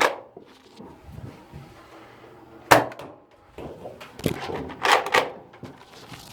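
Nerf Rival blaster being fired, with the foam balls smacking off hard surfaces: several sharp knocks, one right at the start, one a little under three seconds in, and a cluster around five seconds in.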